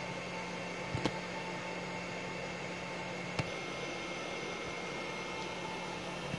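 Steady fan hiss and hum of running equipment, with a low steady tone and fainter higher whining tones over it. Two light clicks, about a second in and about three and a half seconds in.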